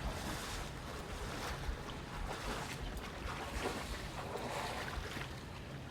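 Shallow water sloshing and splashing in repeated surges, about one a second, as someone wades through it.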